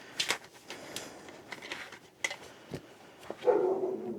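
Short clicks and scrapes of a cutter working through electrical cable sheath, then a dog whining briefly near the end.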